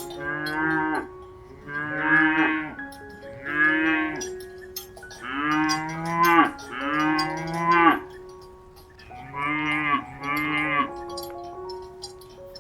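Cow mooing over and over: seven separate moos of about a second each, in groups of two or three. Steady ringing tones carry on underneath.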